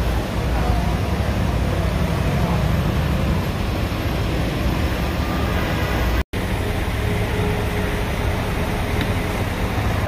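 Steady city street traffic noise of passing cars and other vehicles, heaviest in the low rumble, broken by a sudden split-second dropout about six seconds in.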